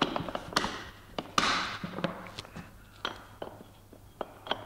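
Irregular knocks, taps and short scrapes as Velcro pad-holder discs are handled and pressed onto the metal planetary sanding head of a floor sander.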